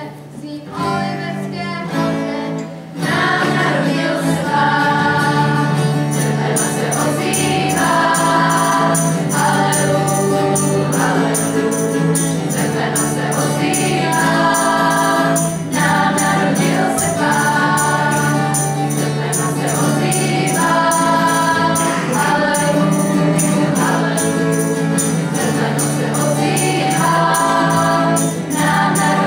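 A girls' choir singing a song, accompanied by acoustic guitar. It starts softer, and the full choir comes in about three seconds in.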